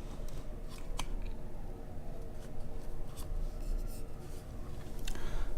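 A few sharp clicks and light rubbing from hands working a laptop's trackpad and keys, over a steady low hum. One click comes about a second in, and more come near the end.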